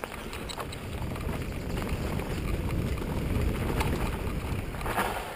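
Wind buffeting the microphone and mountain bike tyres rumbling over a rough dirt trail, growing louder to a peak about three to four seconds in, with a few sharp knocks from bumps.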